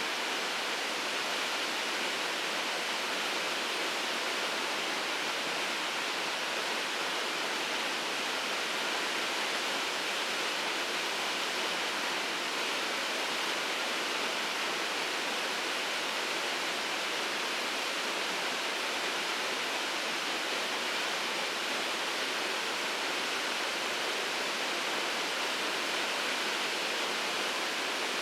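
Shirogane Falls pouring steadily: an unbroken rushing hiss of falling water with no change in level.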